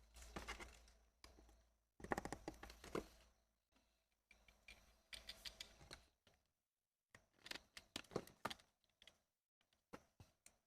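Faint clicking and scraping of hard plastic in about five short spells with pauses between them: an electric toothbrush's casing being handled and pried apart.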